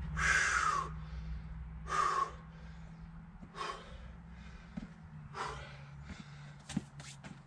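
A man breathing hard from exertion, four loud puffing breaths about one and a half to two seconds apart while he strains to push a bare truck frame on its wheels. A few light clicks near the end.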